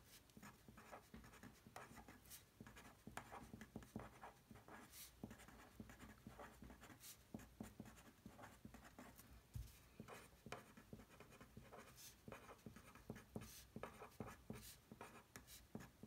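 Felt-tip pen writing on a paper worksheet: faint, short scratching strokes of handwriting that come irregularly, with brief pauses between words.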